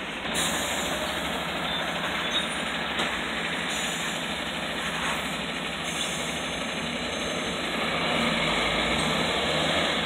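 Steady road traffic on a wet street: cars and city buses passing, then a tanker truck's diesel engine passing close, louder over the last couple of seconds.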